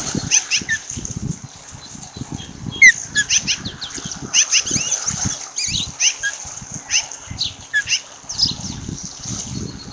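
Ospreys calling: repeated short, high whistled chirps, the loudest about three seconds in. Low thumps and rumbling run underneath, and grow near the end. A steady hiss is also there. The nest camera's microphone is faulty, and its sound is garbled.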